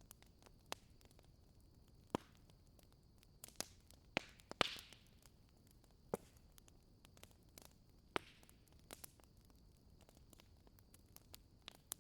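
Faint campfire crackling: scattered sharp pops and snaps over a low steady hiss, with a louder pop about four and a half seconds in.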